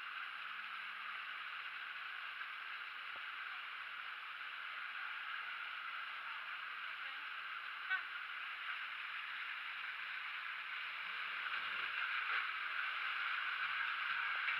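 Steady rush of water running into a tube waterslide, growing a little louder near the end, with one short click about eight seconds in.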